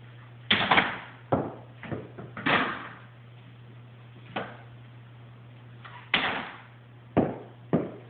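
Basketball thudding off a plastic toy hoop and bouncing on a hard floor: a series of about eight separate thuds, each with a short ringing echo.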